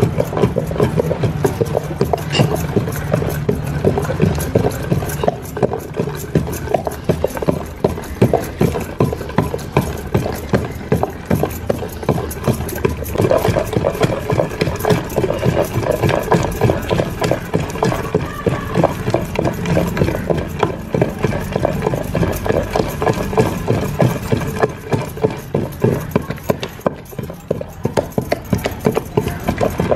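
Rapid, continuous tapping and knocking of hand food preparation while roti and chutney are made, several strokes a second.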